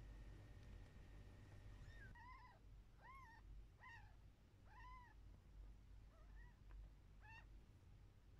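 A newborn kitten mewing faintly: about seven short, high squeaks, each rising then falling in pitch, beginning about two seconds in.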